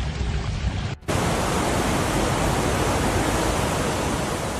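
Steady rush of water. It cuts off sharply about a second in and comes back louder and fuller.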